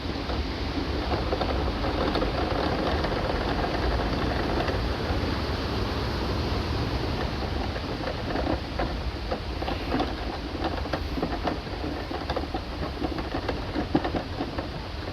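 Steady rushing noise of falling water, with scattered light ticks and patters over the second half.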